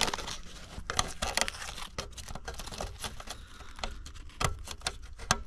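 Crinkling and rustling of crumpled wrapping material being handled, with scattered light clicks and knocks.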